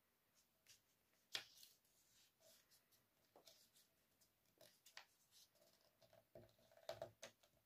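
Faint rustling of a sheet of paper being folded and creased by hand, with a few short, sharper crackles, the clearest about a second and a half in.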